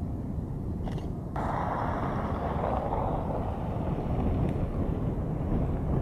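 Roar of a large wedge tornado at close range: a steady low rumble, joined abruptly a little over a second in by a louder hiss that stays.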